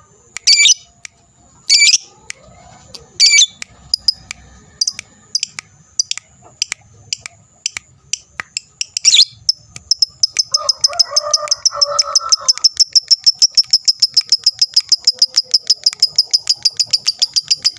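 Lovebird calling: a few sharp separate high calls, then from about ten seconds in a long, rapid chattering trill of evenly spaced high notes, several a second, the 'ngekek' song.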